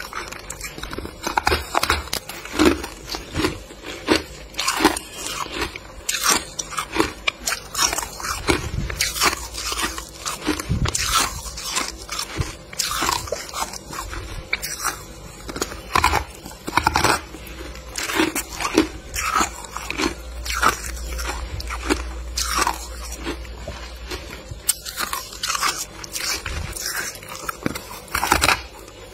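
A person biting into and chewing chunks of freezer frost close to the microphone: repeated sharp, crunchy bites and chews at an uneven pace.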